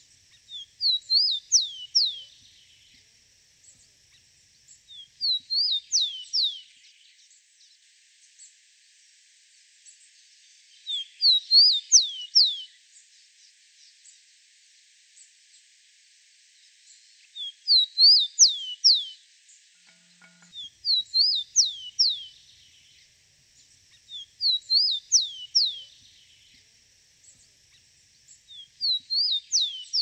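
Rufous-collared sparrow (tico-tico) singing its song over and over. Each phrase is a short run of clear, high whistled notes that sweep down in pitch, and a new phrase comes every few seconds.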